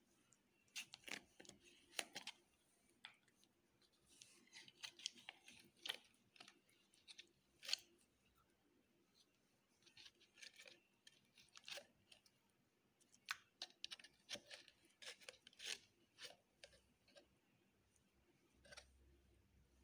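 Slime being mixed and squeezed by hand, giving faint runs of sharp clicks and pops in irregular clusters with short pauses between them.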